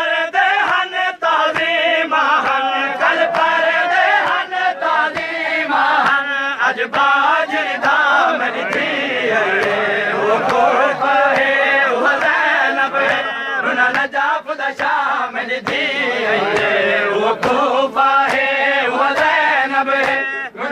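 Saraiki noha, a Shia mourning lament, chanted by a group of men, with many sharp slaps running through it from men beating their chests (matam) in time.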